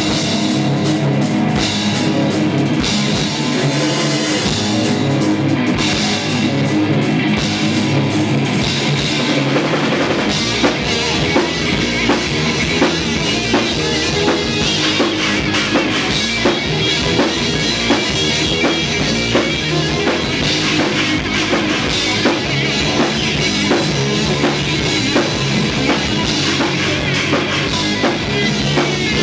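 Live heavy metal band playing: distorted guitars and a drum kit. About a third of the way in the drums settle into a steady driving beat with a repeated kick drum.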